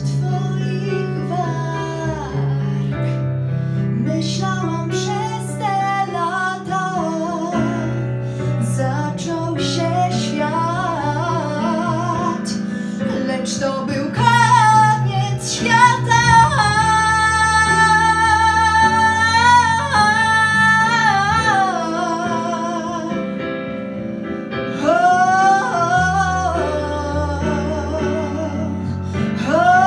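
A young woman sings solo into a handheld microphone over an instrumental backing track. From about 14 seconds in she holds long, louder notes with vibrato, then climbs again near the end.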